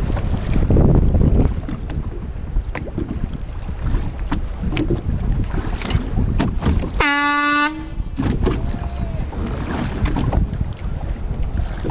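Wind buffeting the microphone over open sea, with the rush of water around a boat. About seven seconds in, a single short horn blast sounds.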